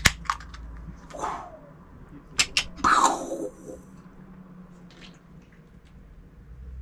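A drink can's tab cracked open with a sharp click, then a few small metallic clicks from handling the can and two short breathy hisses, followed by quieter sipping.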